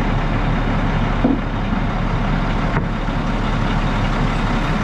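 Concrete boom pump truck's diesel engine running steadily, a deep, even drone, with a light knock about a second in.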